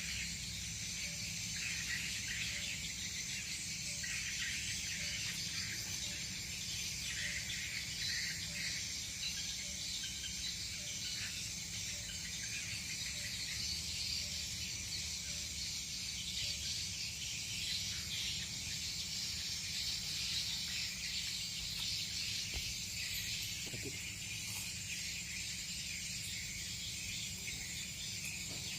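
Steady outdoor chorus of chirring insects, crickets among them, with a faint low rumble underneath.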